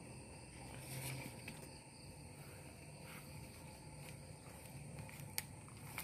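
A steady, high-pitched chorus of insects with several thin, unbroken tones. Brief leaf rustling comes about a second in and again near the middle, and a single sharp click comes near the end.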